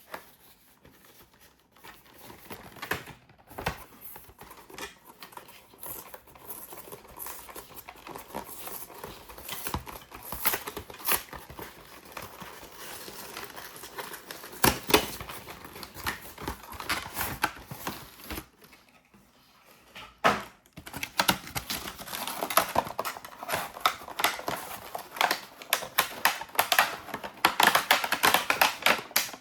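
Packaging handled and opened by hand: irregular clicks and taps of cardboard and plastic, with crinkling that grows busier in the last third after a short lull.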